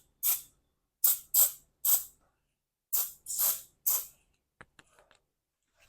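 Aerosol lubricant sprayed in about seven short hissing bursts, in twos and threes, onto the garage door's rollers and track, where metal rubbing on metal makes the door squeak. A few faint ticks follow near the end.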